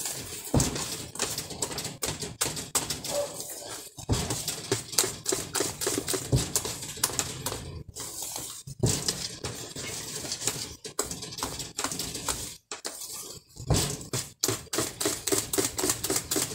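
A wire whisk beating thick cake batter by hand in a bowl: rapid, uneven clicking and tapping of the metal wires against the bowl, with a few brief pauses.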